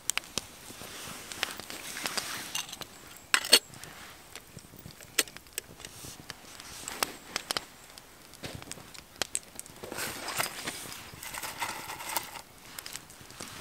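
Popcorn kernels popping inside a lidded stainless pot over a campfire: sharp pops and clicks at irregular intervals, with one loud pop a few seconds in, over a faint hiss of hot oil and fire.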